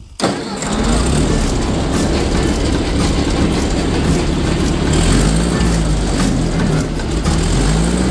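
1954 Ford Jubilee tractor's four-cylinder gasoline engine making a cold start on choke: it fires up almost at once, then runs steadily with its speed rising and falling a little.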